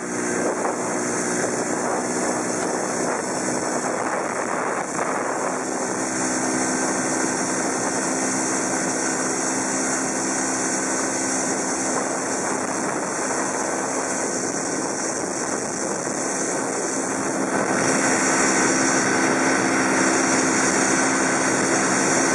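Honda Super Cub 90's single-cylinder four-stroke engine running steadily as the bike is ridden along, over a steady rush of wind and road noise. It grows a little louder about three-quarters of the way through.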